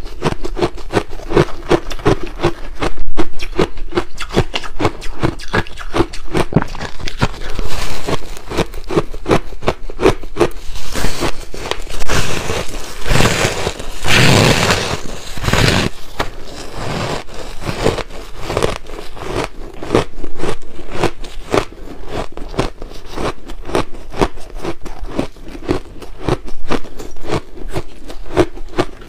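Close-miked chewing and crunching of soft freezer frost ice, a dense run of fine crackles, with a louder, fuller crunch from about 12 to 16 seconds in as a chunk is bitten off.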